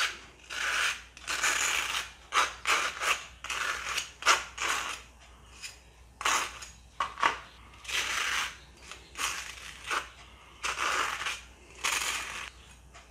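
Table knife scraping mayonnaise across a slice of toasted bread, a series of irregular scraping strokes.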